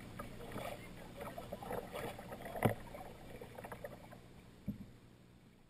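Kayak paddle strokes in calm water: the blades dip and drip with small splashes and trickles. A sharp knock comes about two and a half seconds in and a smaller one near the end, and the sound fades out at the close.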